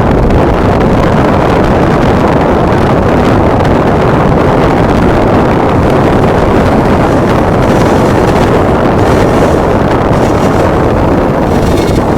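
Loud, steady rumble of a moving vehicle with wind buffeting the microphone, heard while pacing a diesel-hauled passenger train.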